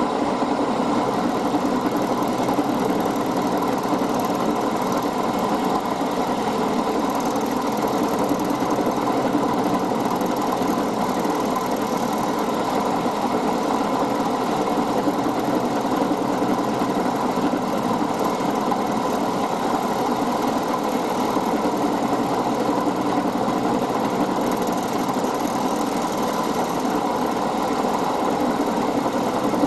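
Milling machine running steadily, its motor and spindle giving an even hum with several steady tones while it takes a light cut off an aluminium part to bring it to size.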